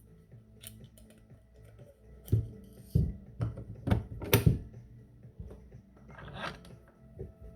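Background music, with a run of sharp clicks and knocks as airsoft gun parts are handled and fitted together during a stock installation, the loudest a few seconds in, then a brief scraping sound near the end.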